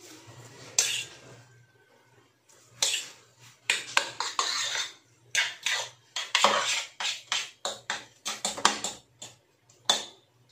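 A metal utensil clinking and scraping against cookware as instant pancit canton noodles are stirred. The strokes come quick and irregular, sparse at first and busiest past the middle.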